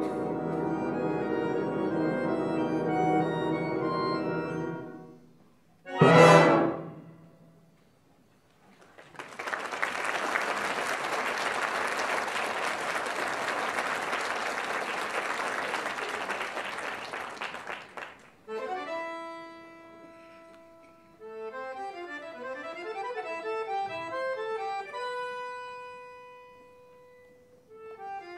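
A concert band and accordion hold a sustained chord that cuts off about five seconds in. A short, very loud accent follows, then a long even rushing hiss of about nine seconds. After that the accordion plays alone in sparse held notes and quick crisscrossing runs of notes.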